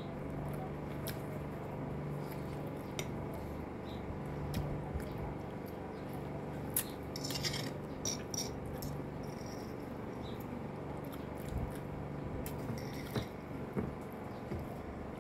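A metal fork clicking and scraping against a glass plate, in scattered light taps, with soft eating sounds and a faint low hum underneath.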